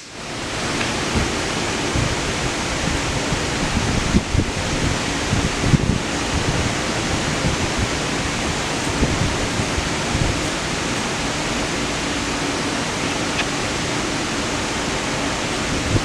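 Steady rushing noise of moving air, with a couple of faint knocks about four and six seconds in.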